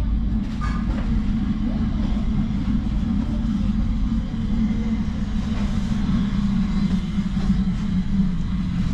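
Steady low mechanical drone with a deep rumble beneath it, unbroken and without distinct knocks or clicks.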